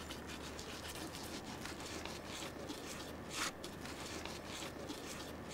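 Faint rustling and small crackles of hands and a knife working the hide off an animal carcass, with a brief scratchy rasp about three and a half seconds in.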